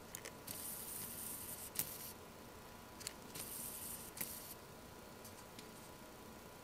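Faint camera handling noise: a handful of sharp clicks and two short stretches of high hiss as the camera is moved and refocused, over a faint steady hum of thin tones.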